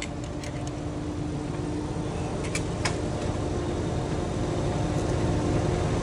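Putzmeister concrete line pump running, pushing bentonite priming slurry out of the hose end into a plastic bucket. It is a steady rumble that grows gradually louder, with a few sharp clicks.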